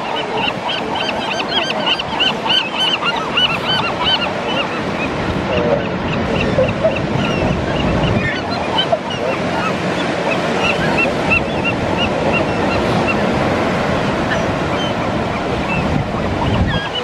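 Gulls calling in rapid, repeated short notes, several a second, over a steady wash of surf and wind.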